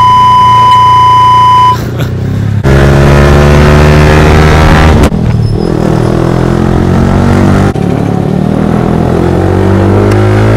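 A steady electronic beep for the first couple of seconds. Then a Yamaha R15 V3's single-cylinder 155 cc engine revs hard while riding, its pitch climbing again and again through the gears. The engine note breaks off abruptly twice.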